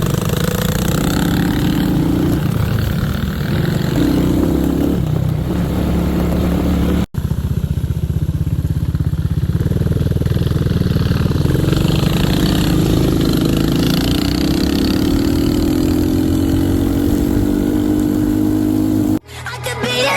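Kawasaki KX65 dirt bike's 65cc two-stroke single-cylinder engine running loud, its pitch shifting up and down, then climbing steadily for several seconds in the second half. The sound breaks off for an instant about seven seconds in, and music cuts in near the end.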